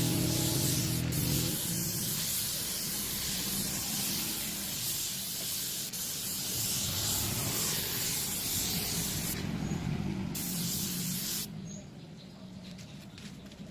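Steady spraying hiss with a low hum underneath. It drops away sharply about eleven and a half seconds in.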